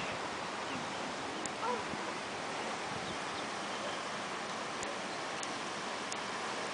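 Steady outdoor ambient hiss at a pond's edge, with a few faint, brief chirps.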